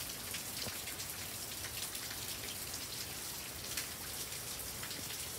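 Steady rain falling, with many separate drops ticking close by over an even hiss.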